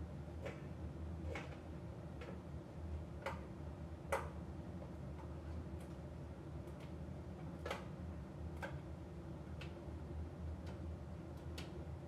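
AEG AbsoluteCare heat pump tumble dryer running in its drying phase: a steady low hum, with irregular light clicks and taps as the load tumbles in the drum. The loudest knock comes about four seconds in.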